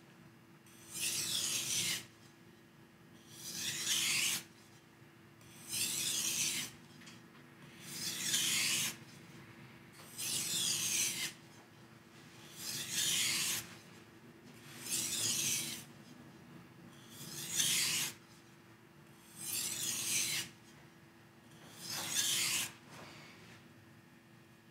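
A knife blade of HAP40 steel is drawn across a water-soaked whetstone in light deburring strokes, ending the sharpening of the edge. The strokes make a gritty scrape, about ten of them, each about a second long, one every two seconds or so. A faint steady hum runs underneath.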